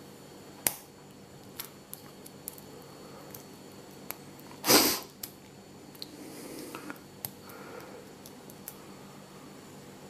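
Small irregular metallic clicks and ticks of a lock pick and tension wrench working the pins in the keyway of a brass 5-pin Chubb padlock during single-pin picking, with one louder brief rush of noise near the middle.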